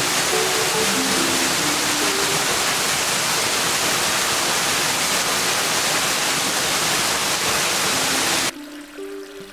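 Waterfall: a steady, loud rush of water falling onto rock and into a pool, which cuts off abruptly about eight and a half seconds in. Soft melodic background music is faintly audible under it at the start and alone after the cut.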